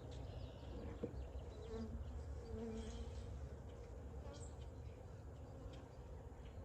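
Honeybees buzzing around an open hive, with the buzz of one bee louder for a moment about two seconds in as it flies close by.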